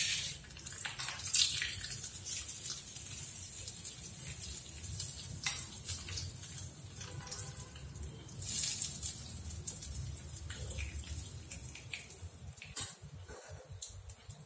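Hot tadka of oil, mustard seeds, urad dal, dried red chillies and curry leaves sizzling as it is spooned from a small pan onto chutney. The sizzle comes in a few short hissing spurts, the longest about nine seconds in, with a metal spoon scraping and clinking against the pan and bowl.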